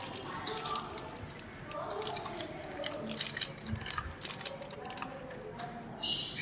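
Hands handling a phone's boxed accessories, the charger and cable, making a run of small clicks, taps and rustles, thickest from about two to three and a half seconds in.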